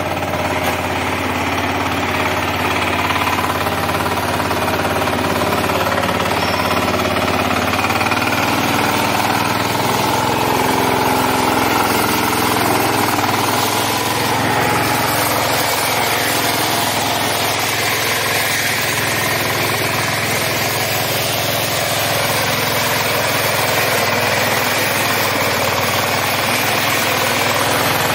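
Small air-cooled single-cylinder diesel engine of a walk-behind maize harvester running steadily with a knocking chug, its tone shifting a couple of times as the machine works.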